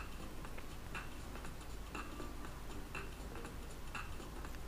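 Clock ticking faintly, about one tick a second: a countdown-timer tick marking the time given to answer a question.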